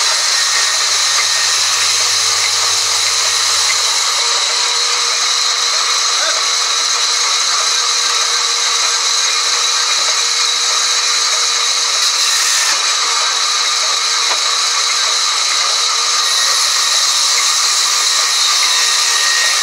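Sawmill band saw running and cutting through a log, a steady high-pitched whine and hiss of the blade in the wood.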